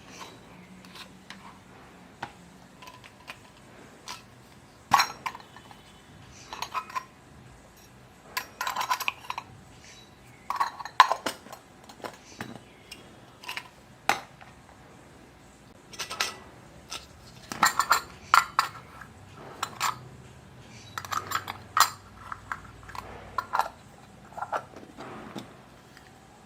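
Small plastic toy kitchen pieces, such as dishes and utensils, clicking and clinking against each other as they are handled and set down, in irregular clusters of light taps.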